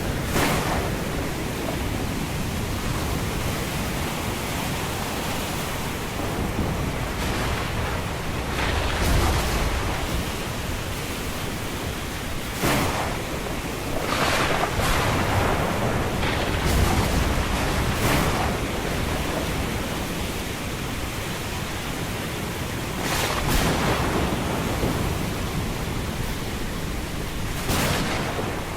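Sea surf breaking on a beach in a steady rush, with wind buffeting the microphone and brief louder swells every few seconds.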